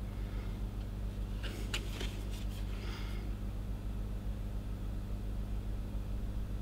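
Steady low electrical hum, with a few short, faint scrapes and rustles about one and a half to three seconds in as thermal paste is worked over a CPU's heat spreader.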